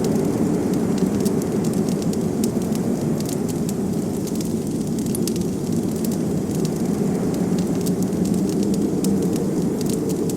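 Wood fire crackling, with many quick, irregular pops over a steady low rush of blizzard wind.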